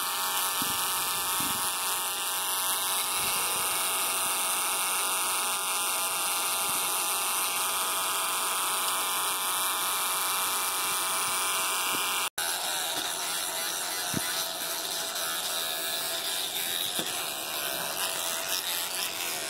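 An electric toothbrush running with a steady buzz. It drops out for an instant about twelve seconds in, then carries on.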